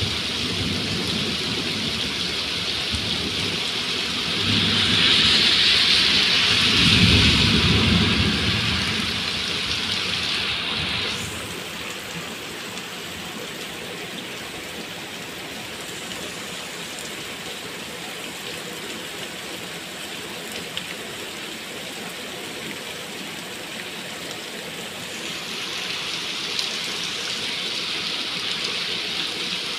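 Heavy rain pouring steadily onto wet paving, with a low rumble of thunder a few seconds in. The rain is loudest in the first ten seconds, drops back after about eleven seconds, and grows louder again near the end.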